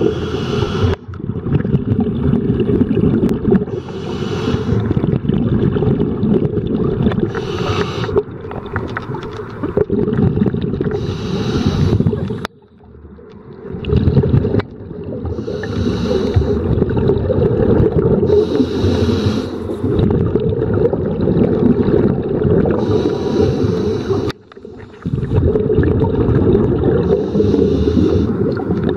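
Scuba diver's breathing through a regulator, heard underwater: a steady low bubbling rumble with a brief hiss of breath about every three to four seconds. The rumble drops out briefly twice, about halfway through and near the end.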